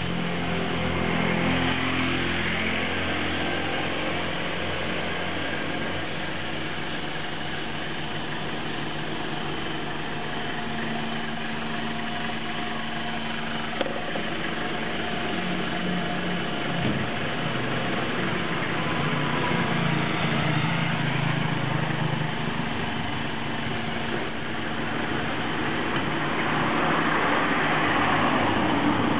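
A motor vehicle engine idling steadily, with traffic passing by near the start and again near the end.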